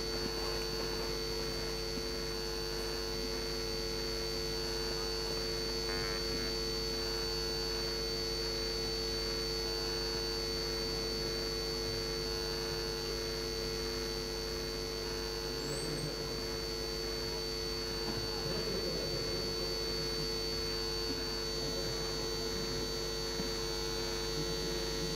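Steady electrical hum made of several constant tones, including a thin high whine, holding an even level.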